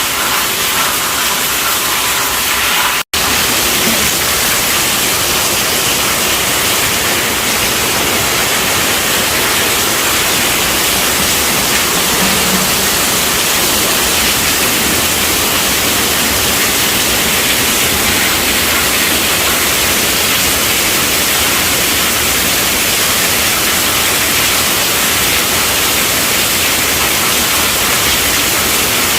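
Steady rainfall, an even hiss spread across high and low pitches. It cuts out for an instant about three seconds in, then carries on unchanged.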